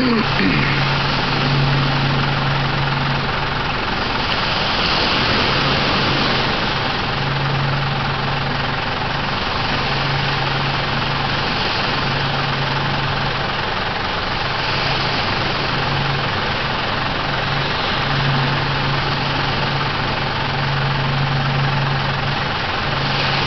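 An engine idling, a low hum that comes and goes every second or two, over the steady hiss of waves washing up the beach.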